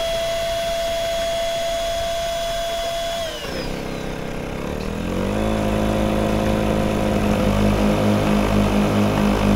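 Outdoor Master Shark 3 rechargeable electric SUP pump running under load inflating a kayak floor chamber: a steady whine whose pitch drops a little after three seconds in, settling into a lower, heavier tone that begins to pulse about two and a half times a second near the end as its battery runs flat.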